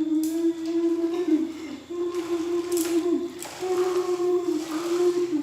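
A voice humming three long, held notes at a steady middle pitch, each wavering slightly and dipping at its end.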